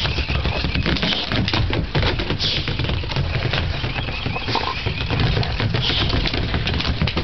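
A boxer dog's claws and paws pattering and scrabbling on wooden deck boards as she chases and pushes a toy ball around, a dense run of quick clicks and knocks.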